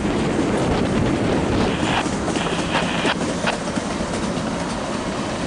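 Empty tank cars of a freight train rolling past, their wheels clicking over the rail joints. About two seconds in there is a brief high-pitched squeal from the wheels.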